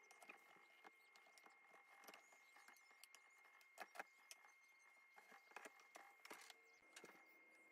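Faint scattered clicks and ticks of a flathead screwdriver prying at a plastic headlight housing and lens, working the lens loose from its heat-softened silicone adhesive.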